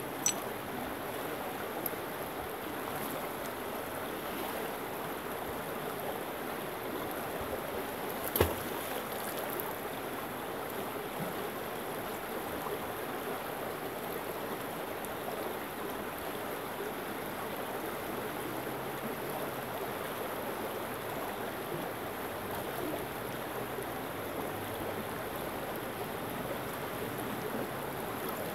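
Shallow stream rippling over rocks, a steady rush of running water. One sharp knock about eight seconds in.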